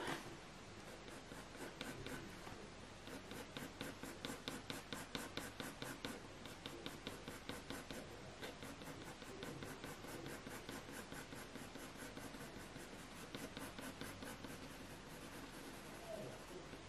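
A 4B graphite pencil shading on hot-pressed watercolour paper, a faint scratching made of rapid short back-and-forth strokes as the lead darkens a drawn area.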